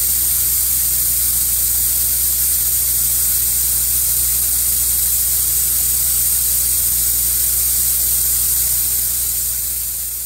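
Closed-cell spray foam gun hissing steadily and loudly, with a low hum underneath; it fades out near the end.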